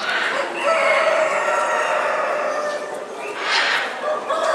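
Several roosters crowing in overlapping long calls at different pitches.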